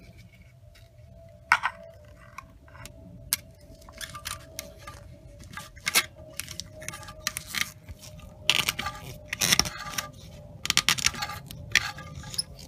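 Grundfos central-heating circulator pump that has run dry and seized, its motor humming with a steady tone while it struggles to turn. Irregular clicks and rattles come from it, busier in the second half.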